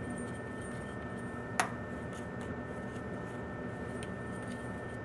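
Steady background hum with a faint high tone, and one sharp click about a second and a half in.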